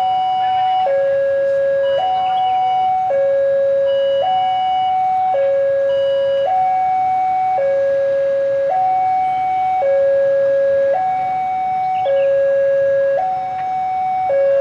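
Electronic two-tone warning alarm of a railway level crossing sounding as a train approaches. It alternates steadily between a higher and a lower tone, each held about a second.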